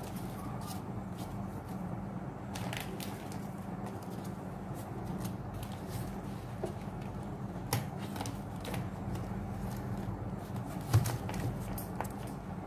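Trading cards being handled and laid down on a cutting mat: soft sliding and light, irregular taps, with a louder knock about eleven seconds in, over a steady low hum.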